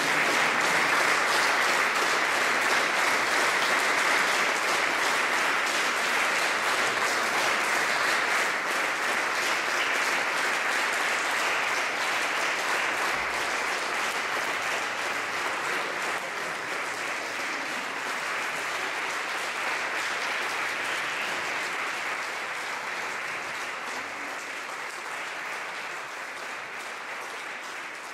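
Audience applauding steadily, the clapping gradually dying down over the last part.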